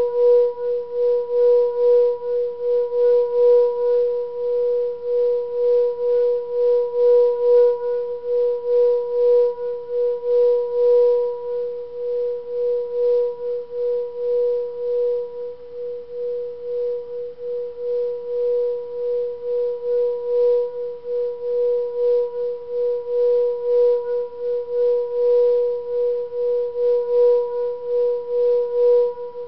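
Singing bowl played by rubbing a mallet around its rim, holding one steady, pulsing tone with a fainter higher overtone, and a faint, rhythmic scraping from the mallet.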